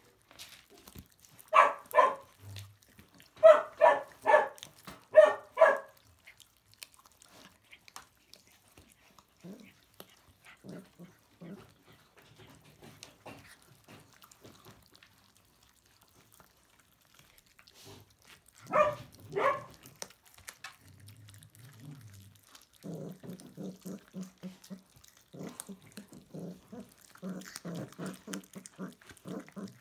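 Puppies growling and yapping over a piece of raw meat: quick runs of short, high yaps near the start and again about two-thirds through, then a rapid, pulsing low growl near the end.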